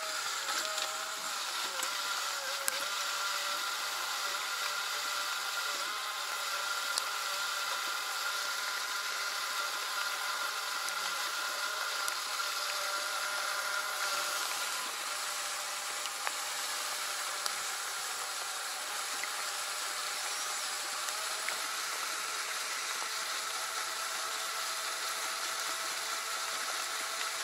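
Steady rain falling on the water and the boat, with scattered small ticks of drops, over a faint steady mechanical hum.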